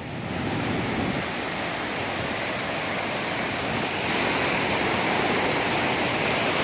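Waterfall's rushing water: a steady, very loud rush of noise, growing a little louder about four seconds in.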